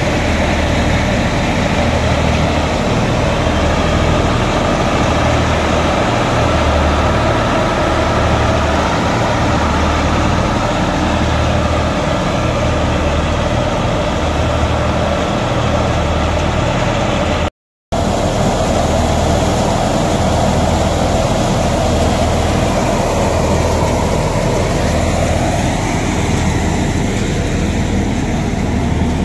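Tractor diesel engine running steadily, powering a thresher that is threshing taramira, with a low pulsing throb under a constant mechanical hum. The sound drops out for an instant about two-thirds of the way through.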